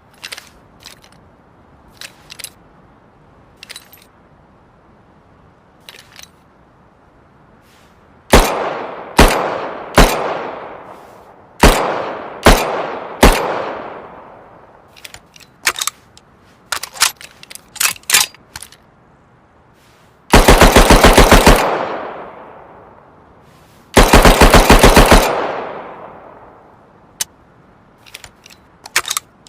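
Submachine gun sound effect: small clicks, then six single shots each with a long fading echo, then two rapid full-auto bursts of about a second each, with more small clicks between and after.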